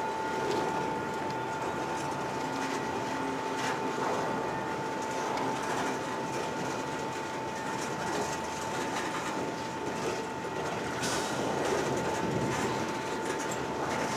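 Work train rolling slowly in reverse, its wheels clicking now and then over rail joints, over a steady high-pitched whine.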